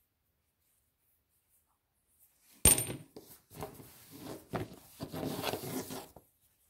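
A sharp clack of stone knocking on stone about two and a half seconds in, the loudest sound, followed by several seconds of lighter clicking and rustling as stones are handled and picked from among others on towels.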